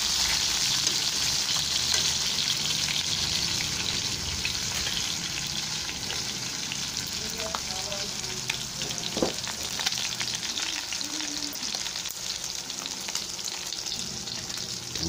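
Pork steak slices sizzling as they fry in oil in a pan, the sizzle slowly easing off. A few light clicks, one sharper about nine seconds in.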